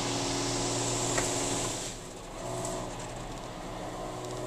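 Automatic car wash spraying water over a car, heard from inside the cabin as a steady hiss over a low machine hum. About two seconds in the spray stops and the sound drops to a quieter hum.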